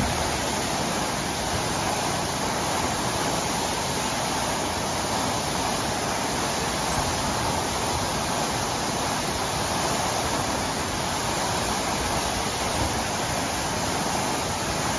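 Water from a broken fire hydrant gushing uncontrolled and raining down as spray onto pavement: a steady, even rushing hiss.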